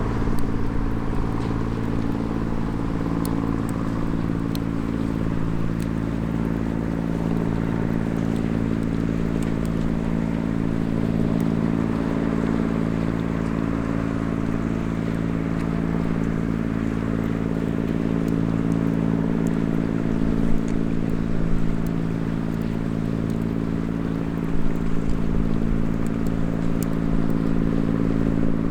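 A steady, unchanging low engine hum, as of a motor left running, with the faint crackle of a small wood fire over it.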